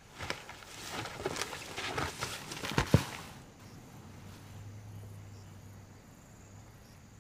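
African elephant bull breaking and thrashing a leafy branch with its trunk: a run of crackling and snapping wood with one loud sharp snap about three seconds in. After that a low steady hum carries on.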